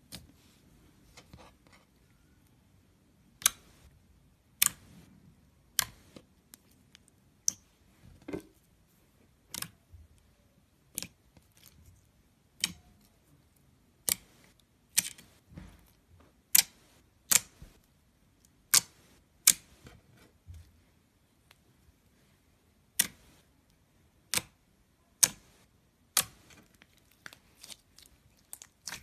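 Fingers pressing and poking into a thick grey glitter slime, squeezing out trapped air in sharp, irregular pops and clicks, roughly one a second.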